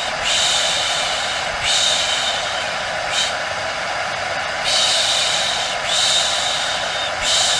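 Steady whirring of a hair dryer played as white noise, with a faint constant whine, overlaid by repeated hissing surges about a second long, five or six of them.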